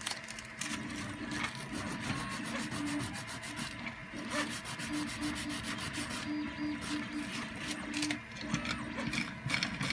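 A small 3D-printed PLA gear being hand-sanded on a sanding block: quick back-and-forth rubbing strokes, about three a second, that stop a couple of seconds before the end. Its top and leading edges are being eased so that the gear runs freely without catching.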